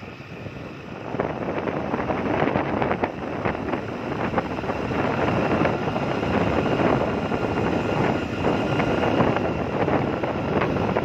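Wind rushing over the microphone of a camera riding on a moving vehicle, mixed with the vehicle's road and engine noise; it swells about a second in and stays steady, with a faint steady whine beneath.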